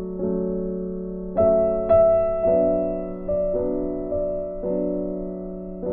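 Background piano music, slow notes and chords each fading out before the next.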